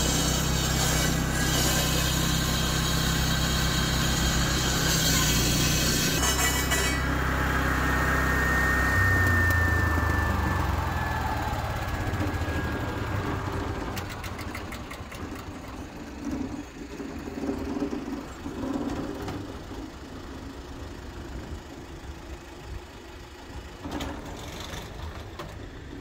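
Engine-driven asphalt floor saw running and cutting. About seven seconds in the cutting hiss stops, and the blade's whine falls slowly in pitch as the saw winds down, its engine fading out a few seconds later. Quieter traffic follows, with scattered light knocks.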